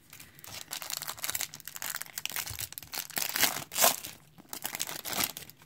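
Clear plastic wrapper of a 1991 Pro Set Series 2 football card pack crinkling and tearing as the pack is opened by hand, in an irregular run of crackles, loudest a little past halfway.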